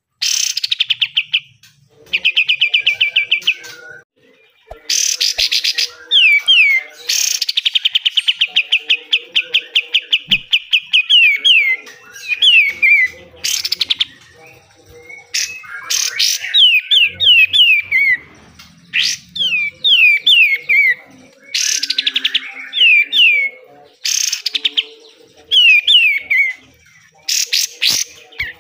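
A kapas tembak (katem) songbird singing its fast, harsh 'besetan' song in loud phrases. Long rapid trills of repeated notes alternate with clusters of quick downward-slurred whistles, with short breaks between phrases.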